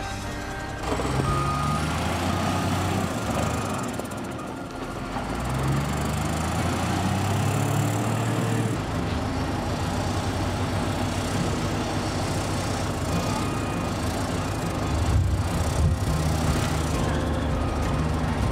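Diesel engine of a wheel loader with log forks working in a log yard, its revs rising and falling under load, with a reversing alarm beeping at times.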